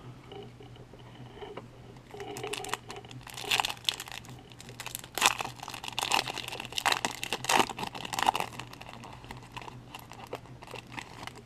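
Foil baseball card pack wrapper being torn open and crinkled by hand, in irregular crackles that start about two seconds in, are loudest in the middle and die away near the end.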